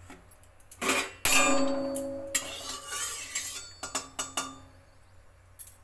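Metal spoon striking and scraping a metal kadhai: a loud clang about a second in that rings and fades over a couple of seconds, then a few lighter clinks.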